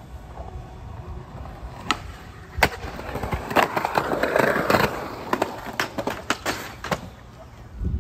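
Skateboard on concrete: sharp clacks of the board and wheels, a louder stretch of scraping about three to five seconds in as it grinds down a ledge, then more scattered clacks.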